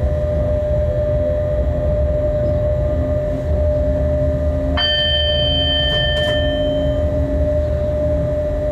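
Inside a freight locomotive's cab on the move: a steady low rumble with a steady whine over it. About five seconds in, a single bell-like ding rings out and fades over a second or two.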